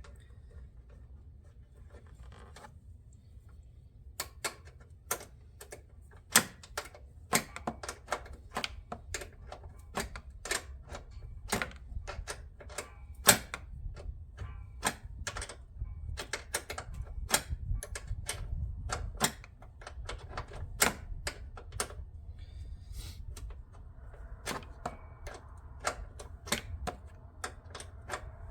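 A 10mm ratchet clicking in short, irregular strokes, about two to three clicks a second, beginning about four seconds in, while battery cable terminal nuts are worked on.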